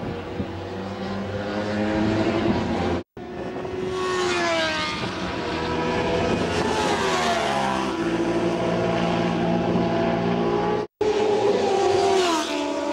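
Sport motorcycle engines running hard on a racetrack as bikes pass, the pitch of the engine note rising and then falling as each one goes by. The sound cuts out briefly twice, about three seconds in and near eleven seconds.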